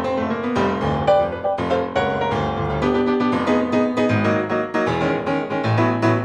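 Piano music with many quick notes in succession.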